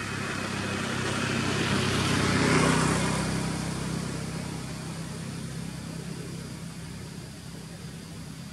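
A motor vehicle passes, growing louder to a peak about two and a half seconds in and then fading, with a low engine hum that carries on after.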